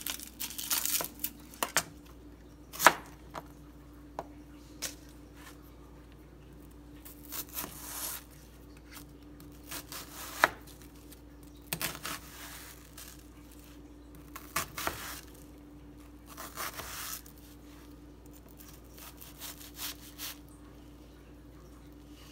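Chef's knife cutting shallot and onion on a cutting board: irregular sharp knocks of the blade hitting the board, with a few longer, softer strokes between them.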